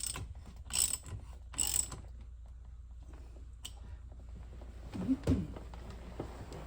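Hand ratchet wrench clicking in short runs, three quick strokes in the first two seconds, as the steering wheel bolt is run back in. Fainter ticks follow, with a duller clunk about five seconds in.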